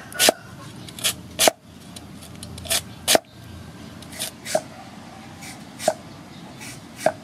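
Cleaver slicing through raw lotus root onto a wooden cutting board, about six cuts, one every second and a half or so. Each cut is a sharp knock, often led by a lighter click.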